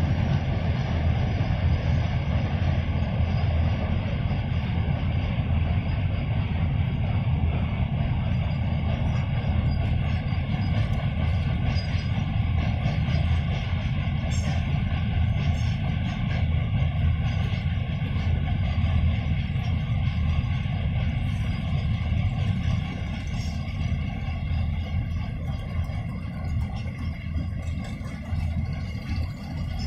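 Freight train of covered BCNA wagons rolling across a steel truss bridge: a steady low rumble of wheels on rails, with faint scattered clicks, easing somewhat in the last several seconds.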